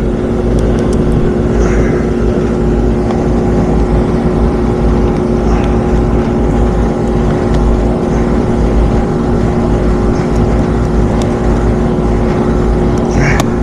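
Commercial rooftop HVAC unit running with its blower on: a steady hum with a few constant tones over a deep rumble.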